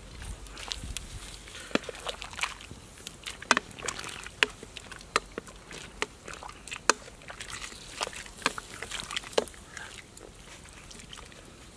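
Hot water sloshing and splashing in a metal wok as a wooden ladle scoops it over a crocodile carcass, with many irregular sharp clicks and knocks that thin out near the end.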